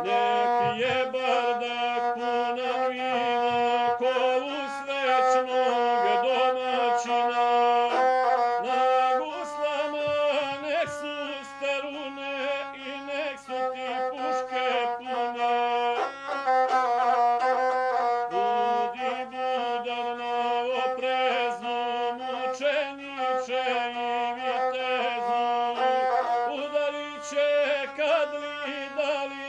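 A gusle, the one-string bowed Balkan folk fiddle, playing an ornamented melody that keeps to a narrow range of notes.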